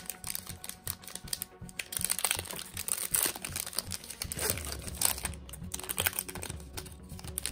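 Foil trading-card pack wrapper crinkling and crackling as it is handled and torn open, a quick run of small crackles and clicks, densest about two to three seconds in.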